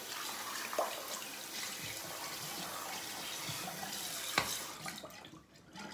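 Bathroom sink tap running steadily while a shaving brush is rinsed of excess lather. The water stops about five seconds in, just after a single sharp knock.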